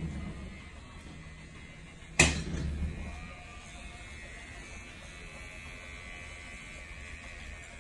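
A sharp knock about two seconds in, then an electric microneedling pen running with a steady thin high hum as it works over the skin.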